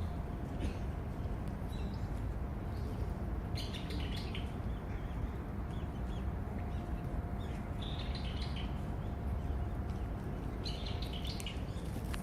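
Small birds chirping in short clusters of quick high calls, three main bursts, over a steady low background rumble.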